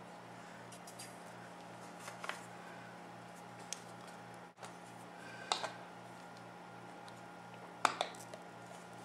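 A few short metallic clicks as steel miter spring clamps are spread with their pliers and set onto the glued mitered corners of a wooden picture frame, over a steady low hum.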